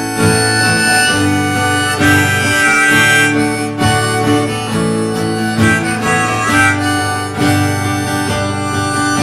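Instrumental break: a harmonica playing a solo line of held, bending notes over strummed acoustic guitar.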